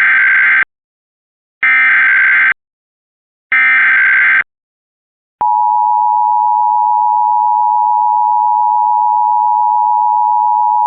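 Emergency Alert System SAME header: three bursts of buzzy digital data tones about a second apart, the first already under way. About five seconds in, the steady two-tone EAS attention signal starts and holds.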